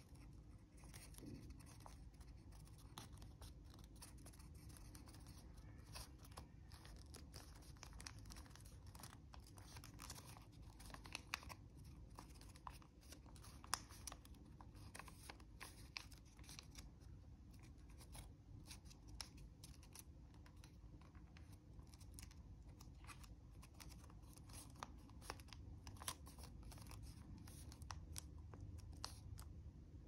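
Faint crinkling and crackling of a sheet of origami paper being folded and creased by hand: many small irregular clicks with a few sharper crackles.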